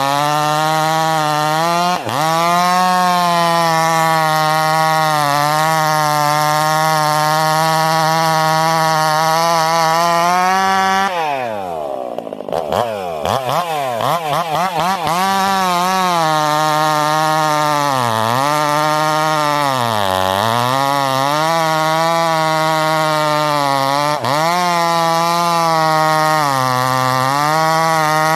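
Ported Stihl MS 362 C two-stroke chainsaw with a piped exhaust running at high revs, likely in a cut. About eleven seconds in the pitch drops steeply towards idle and climbs back, wavering for a few seconds. Shorter dips in revs follow later, as when the chain is loaded in the wood.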